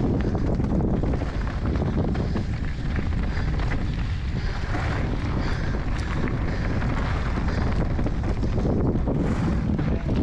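Wind buffeting the camera's microphone while a Juliana Roubion mountain bike rolls fast down a gravel trail, tyres rumbling over the stones, with scattered clicks and rattles.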